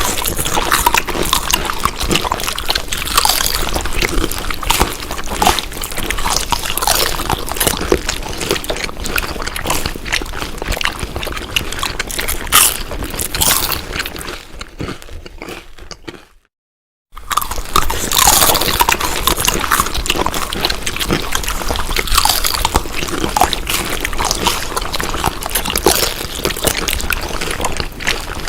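Close-up chewing and eating sounds: wet crunching, smacking and squishing in a dense, continuous run. Around sixteen seconds in it fades, cuts to a brief silence, then starts again just as loud.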